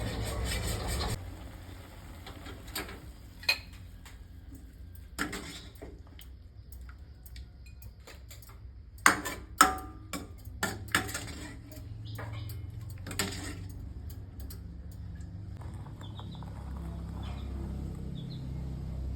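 Metal kitchen utensils clinking and knocking against cookware, in scattered sharp strikes with a close cluster of loud knocks about halfway through, over a steady low rumble.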